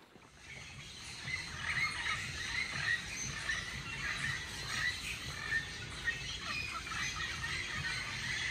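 Many tropical forest birds chirping and calling together in an early-morning chorus, fading in over the first second, over a low steady rumble.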